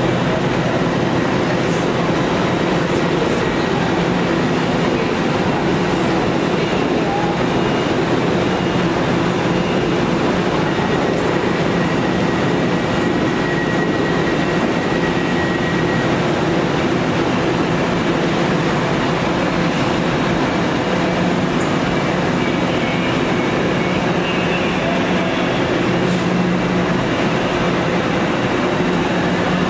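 Steady noise of a train: an even rush with a low hum and a few faint steady tones over it, with no clear arrival, departure or other distinct event.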